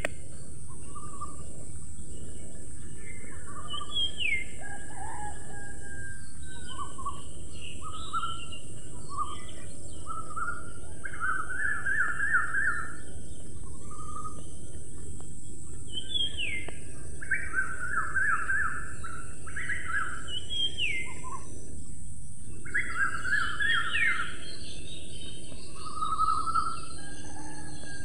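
Several songbirds singing: quick trilled phrases and short falling whistles repeated every few seconds, over a steady high hiss and an even background noise.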